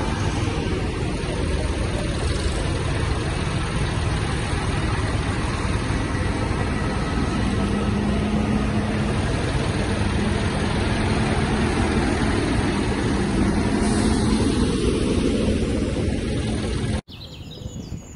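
Large modern farm tractors, a John Deere and a Fendt among them, with their diesel engines running loud and steady as they drive past one after another. The sound cuts off abruptly about a second before the end, giving way to a much quieter outdoor background.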